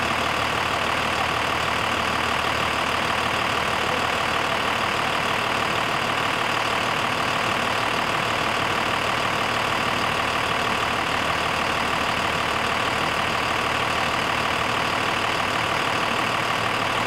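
Fire engine running steadily at the fireground, its engine noise even and unchanging, with a steady high whine on top.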